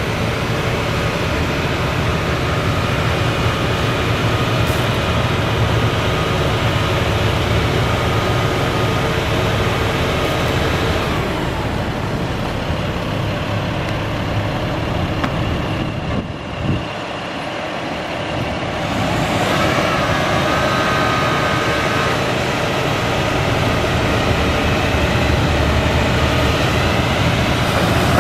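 Diesel engine of an International 7500 crane truck running steadily under load, driving the hydraulics of its National telescopic crane as the boom is worked. Just past the middle the engine note drops for a few seconds, with a short knock, then picks up again with a brief whine.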